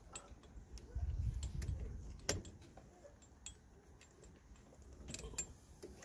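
Brake caliper piston rewind tool being turned by hand in a rear brake caliper, its metal handle and threaded shaft clicking and clinking irregularly as the piston is wound back, with one sharp click about two seconds in.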